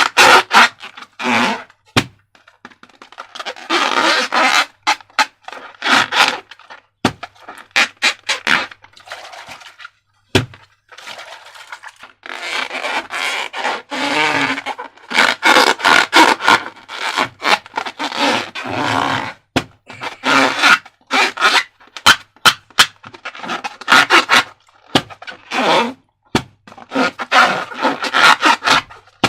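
Slime being squeezed and worked by hand: irregular sticky squishing in short bursts of a second or two, with many sharp crackling clicks between them.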